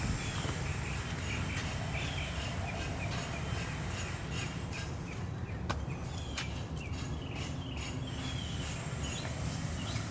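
Small bird chirping over and over, a string of short falling chirps, over a steady low rumble.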